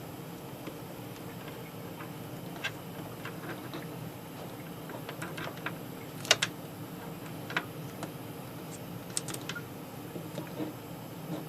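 Scattered light clicks and taps from handling small wires and tools while soldering, over a steady low background hum; two sharper clicks come about six seconds in.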